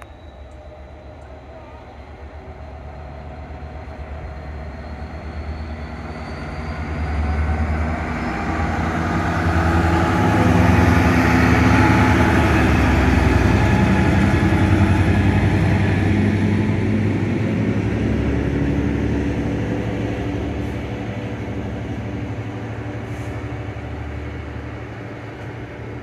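Class 66 diesel locomotive's two-stroke V12 engine heard from a passing train's open window, over the clatter of the carriages. It grows louder to a peak about halfway through, then fades.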